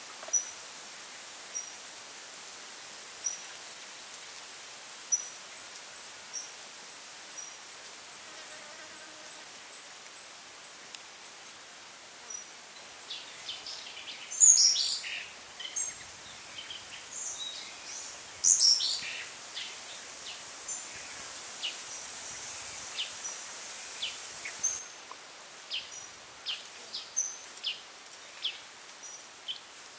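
Outdoor ambience of small birds chirping over a steady faint hiss, with short high calls repeating throughout and louder chirps about halfway through.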